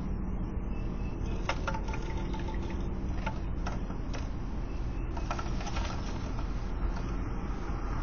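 Steady low outdoor background rumble with a handful of faint, short ticks and scratches in the first half or so.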